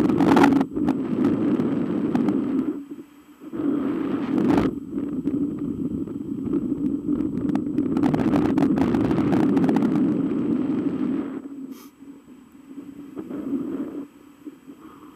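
Wind rushing over the microphone of a camera on a hang glider in flight: a gusty, buffeting rush that swells and drops, easing off briefly about three seconds in and fading much lower after about eleven seconds.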